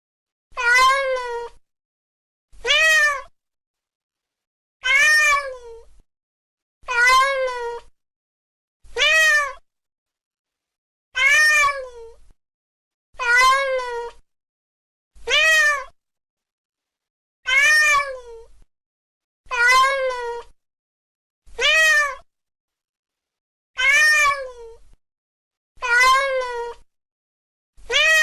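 A domestic cat meowing, one call about every two seconds in an even, looped-sounding series. Each meow lasts under a second and rises then falls in pitch, with silence between the calls.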